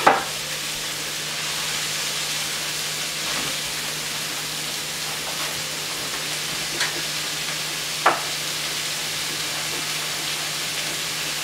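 Food sizzling steadily in a hot frying pan, with a few sharp knocks now and then.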